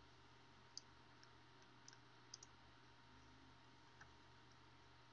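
Computer mouse clicking: a handful of short, faint clicks, several in the first half and one about four seconds in, over a faint steady low hum.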